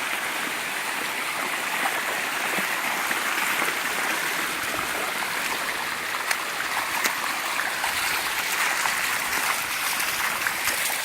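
A waterfall: water running steadily over rock cascades, an even rushing hiss.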